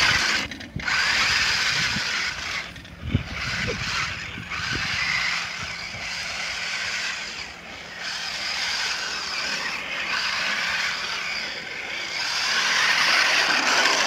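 Toy remote-control monster truck's small electric motor and gearbox whining as it drives, cutting out briefly a few times as the throttle is let off.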